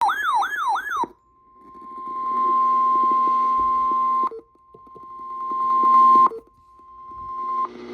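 Weather radio alert: a warbling tone that sweeps up and down three times, then the steady 1050 Hz NOAA Weather Radio warning alarm tone in three stretches, each growing louder and then cutting off, over faint radio hiss and hum.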